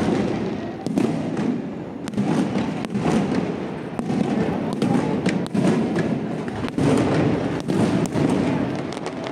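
Aerial fireworks display: a dense barrage of shells launching and bursting. Sharp bangs come several times a second over a continuous booming rumble, with louder peaks about once a second.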